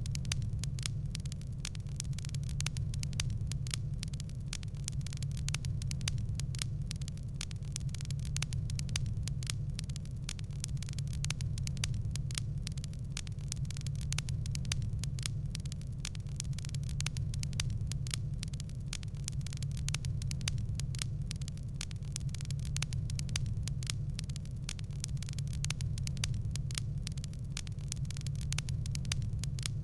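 Wood fire in a fireplace crackling steadily, a dense run of small irregular pops and snaps over a constant low rumble.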